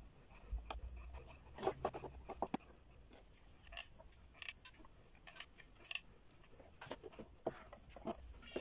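Irregular light clicks, taps and scrapes of wooden ice-cream sticks being handled and set down on a board.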